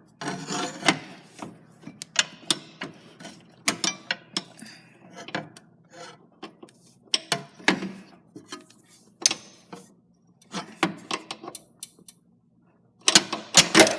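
Irregular metallic clicks, knocks and scrapes of a wrench and a grease gun coupler being worked loose from a stuck grease fitting. The clicks stop for a moment about eleven seconds in, then come fast and loud near the end.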